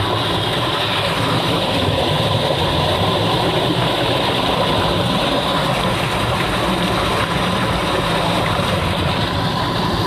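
Steady rush of running water, an even, unbroken noise with no separate drips or splashes.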